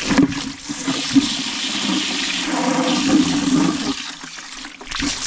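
Water rushing and gurgling, as from a pipe or the house water pump's plumbing, cutting back about four seconds in.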